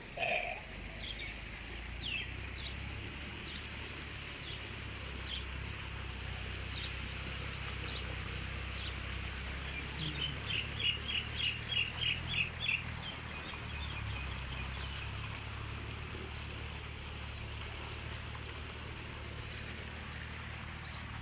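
Small birds chirping on and off, with a quick run of about a dozen chirps between ten and thirteen seconds in, the loudest part. A steady low hum lies underneath.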